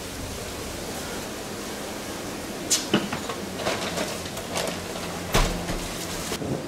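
Steady rush of strong wind, with a few sharp knocks and clicks from about three seconds in.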